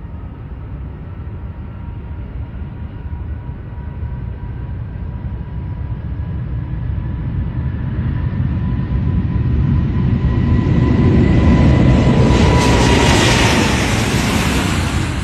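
Aeroplane engines at takeoff: a steady engine whine over a low rumble builds to a loud peak about twelve seconds in. Near the end the whine drops in pitch as the aircraft passes by.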